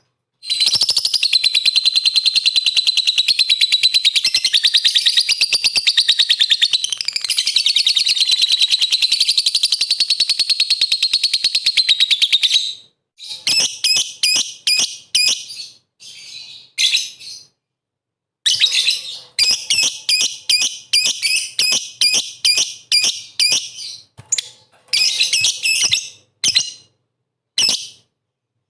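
Lovebird in full song: a long, unbroken, rapid high-pitched chattering trill of about twelve seconds, then shorter bursts of rapid chirps with brief pauses between them. This is the chatty 'gacor' song played as a lure to set other lovebirds singing.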